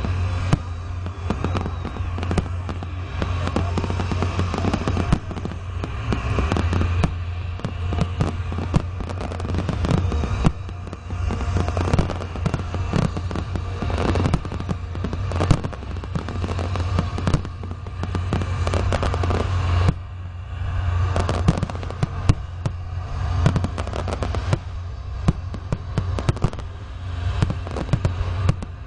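Fireworks display: aerial shells and comets bursting overhead in a dense barrage of rapid bangs and crackles, over a steady low rumble.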